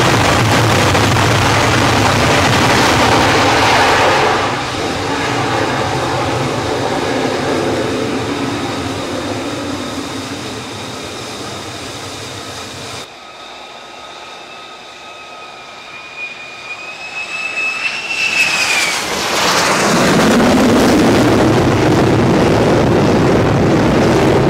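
Carrier jet fighter engines on a flight deck: a loud jet roar at full power during a catapult launch, fading away over several seconds. After a cut there is a steady turbine whine that rises in pitch, then another loud jet roar near the end.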